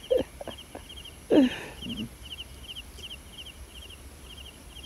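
Night chorus from a rice paddy: a high chirp in short rapid groups, repeating steadily. About a second and a half in comes a short, louder low sound that falls in pitch, with a few light clicks before it.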